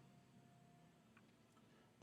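Near silence: room tone, with one faint click just over a second in.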